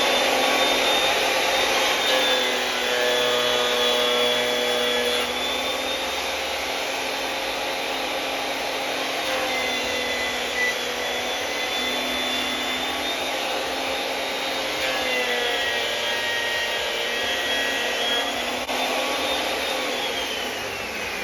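Makita 2012 12-inch lunchbox thickness planer with freshly changed sharp knives, running with a steady high whine; the pitch sags slightly while a board is fed through, quiet and without smacking, the sound of sharp knives. Near the end the motor is switched off and winds down with a falling whine.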